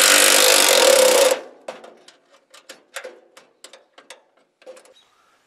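Cordless ratchet spinning a quarter-inch bolt into sheet metal for about a second and a half, then stopping, followed by a string of irregular sharp clicks as the bolt is worked tight.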